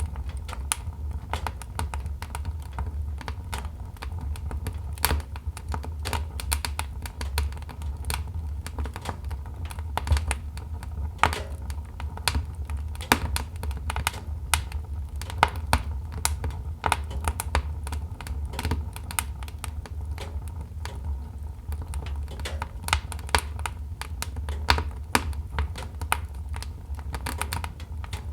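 Wood logs burning in a fireplace, crackling with irregular sharp pops, several a second, over a low steady rumble of the fire.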